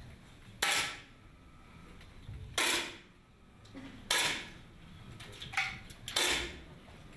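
Pneumatic 10 m match air rifles firing competition shots one after another: four sharp pops, about one and a half to two seconds apart, each with a short ringing tail, and a fainter shot just before the last.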